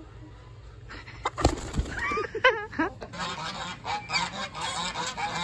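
A flock of domestic geese honking, several calls overlapping into a continuous clamour from about two seconds in. A couple of sharp thumps come just before the honking starts.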